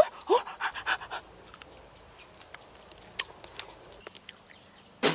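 A man's quick, voiced panting gasps, a few in the first second, then faint rustling and small ticks, with one sharp click near the end.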